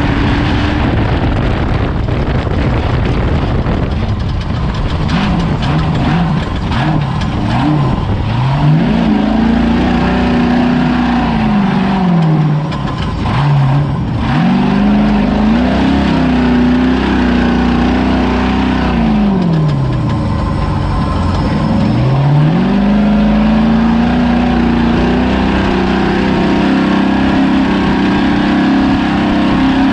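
Ford Ranger-based desert race truck's engine running hard, its pitch dropping and climbing again several times as the throttle is lifted and reapplied. It sits over a constant loud rush of noise.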